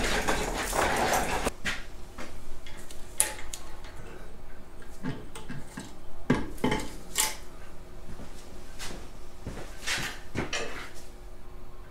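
Lifting chains and a shop engine hoist clinking and clanking as a Farmall MD cylinder head hangs from the hoist and is moved into place over the engine block: a busy clatter at first, then scattered separate metal knocks.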